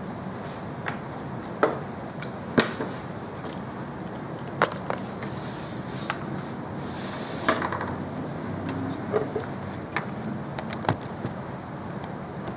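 Scattered sharp clicks and knocks of computer hardware being handled during assembly, with a brief rustle about seven seconds in, over a steady background hum.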